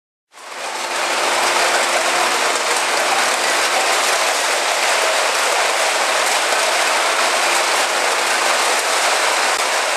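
A truckload of loose metal cans sliding and tumbling out of a tipper truck's raised body onto a heap, a dense, steady metallic clatter. It starts abruptly about a third of a second in.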